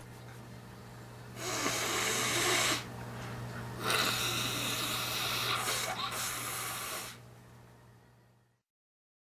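A person breathing heavily and noisily just after a sneeze: two long breaths, the first about a second and a half in and the second longer, over a steady low electrical hum.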